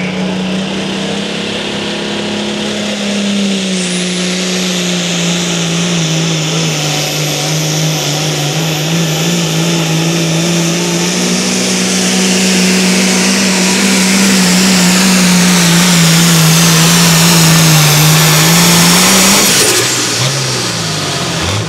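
Super stock pulling tractor's engine running flat out under load during a pull: a steady, slightly wavering note with a high whine above it, growing louder until it breaks off near the end.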